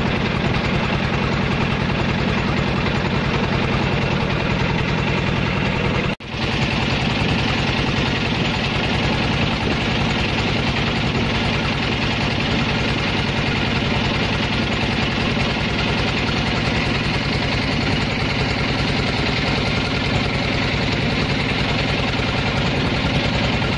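Small passenger boat's engine running steadily under way, a loud, even chugging with a fast regular beat, heard from on board; the sound drops out briefly about six seconds in.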